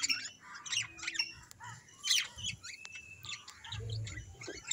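Birds chirping and calling: many short high chirps and a couple of brief whistled notes.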